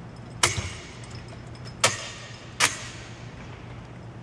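Three sharp knocks from the metal tubing and bolts of a volleyball setting trainer's frame being handled during assembly, the second and third closer together, over a steady low hum.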